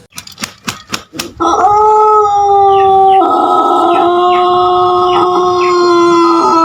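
Pelung rooster crowing: a quick run of about six wing flaps, then a long, steady, drawn-out crow that steps slightly down in pitch partway through and is still going at the end.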